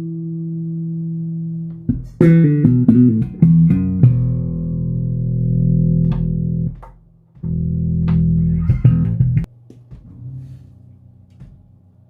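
Fender Precision bass played through a Harley Benton Block 800B bass amp head into a 4x10 bass cabinet, picked up by a phone: a held note, a quick run of short notes about two seconds in, then two long held notes, the last cut off sharply near the end.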